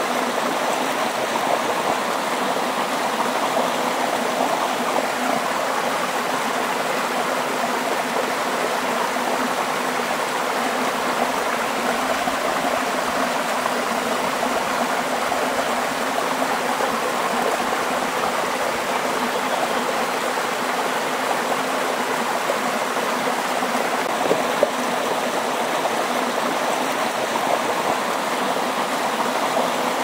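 Waterfall, many thin streams of water falling into a pool: a steady, even rush of water.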